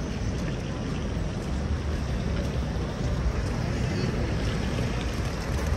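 City street ambience: a steady low rumble of traffic, with indistinct voices of passers-by.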